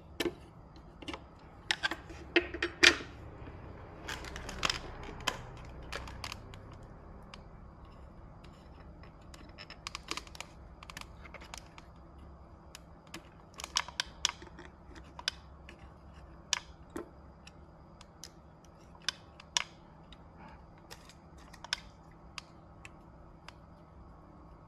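Scattered sharp clicks and taps of small tools and parts being handled at a repair bench, over a faint steady hum. The clicks come thickest in the first few seconds and again about halfway through.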